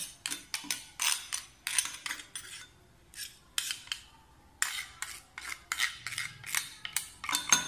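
Metal spoon scraping grated potato off a stainless steel hand grater, a series of short scraping strokes with a couple of brief pauses.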